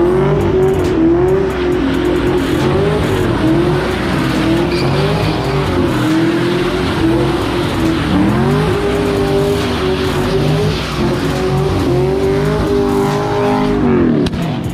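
Car engine held at high revs, bouncing, while the car drifts with its tyres squealing. The revs dip and climb again about eight seconds in, then fall away near the end.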